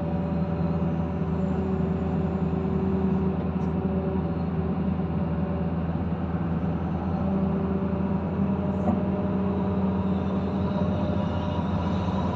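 Kobelco SK130 excavator's diesel engine running steadily, a constant low drone with a fainter higher tone coming and going above it.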